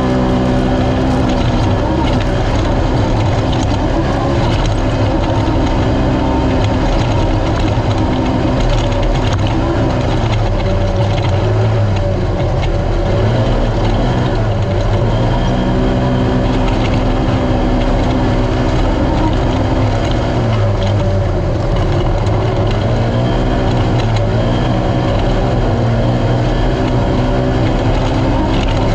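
Naturally aspirated race UTV engine running hard, its pitch dipping briefly four or five times as the throttle comes off and then climbing back.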